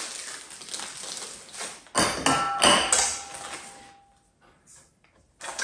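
Screw-on grill legs in a plastic bag being handled and set down: plastic rustling, then a few sharp clinks about two seconds in, one left ringing for about a second and a half.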